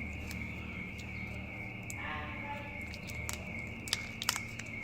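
Small sharp clicks and taps from handling a phone's parts and tools during a battery swap, a few scattered through the stretch and the loudest near the end, over a steady high-pitched whine and a low hum.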